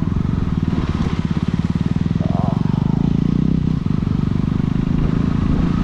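Motorcycle engine running steadily at an even, moderate pace. It is heard close up from the bike being ridden.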